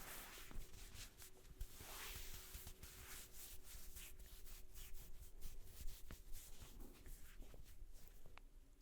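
Hands rubbing and massaging a head of hair close to the microphone: soft rustling friction that swells near the start and again about two seconds in, with many small scattered clicks.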